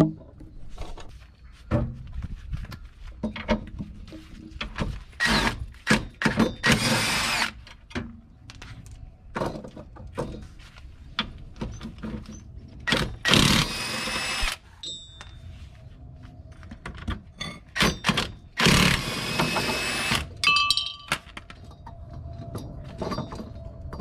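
A cordless power tool runs in several bursts of one to two seconds, spinning out suspension bolts. Short metallic clanks and knocks of tools and parts come in between.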